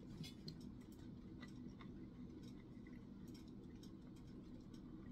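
Faint chewing of a chewy granola bar, heard as scattered soft clicks and crackles over a low steady room hum.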